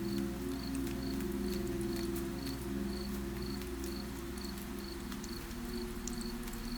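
A cricket chirping steadily, about two short chirps a second, over light rain with scattered drips. A low steady drone of several held tones lies underneath.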